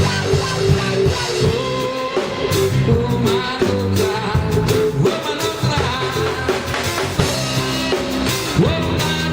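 Live reggae band playing an instrumental passage between sung verses: drum kit keeping a steady beat under bass and guitar, with a melodic lead line on top.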